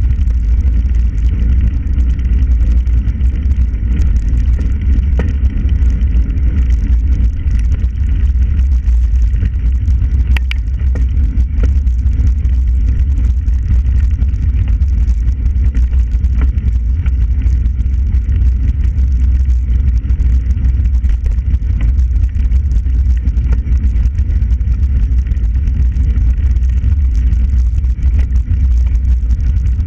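Steady, loud wind rumble on the microphone of a camera moving at riding speed along a towpath, with scattered light clicks and rattles.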